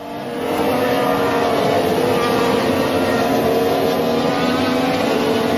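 Formula One car's turbocharged V6 engine heard from the onboard camera at racing speed, a fairly steady high engine note that swells in during the first second.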